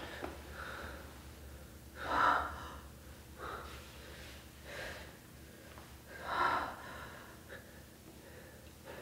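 Heavy breathing and gasps, in several loud breaths a second or two apart, the strongest about two seconds in and again past six seconds, over a low steady hum.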